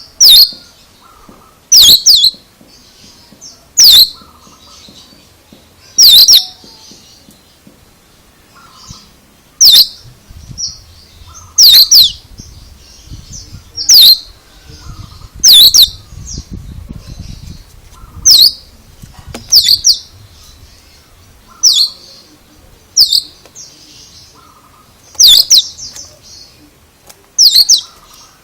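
Oriental magpie-robin (kacer) giving a loud, sharp, high call over and over, about once every two seconds, with softer chirps in between.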